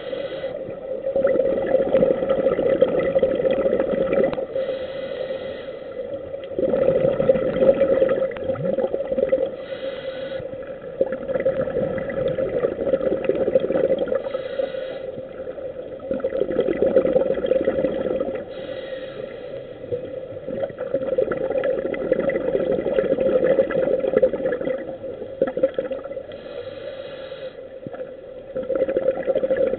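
Scuba regulator breathing heard underwater. Long bubbling exhalations come about every five seconds, with short hissing inhalations between them.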